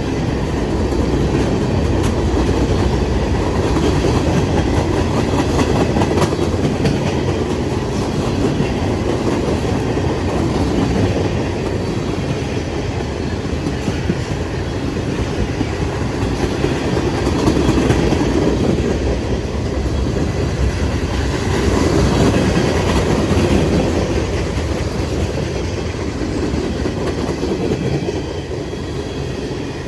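Freight train cars rolling past at speed: a steady rumble of steel wheels on rail that swells and eases, with faint wheel clicks over rail joints.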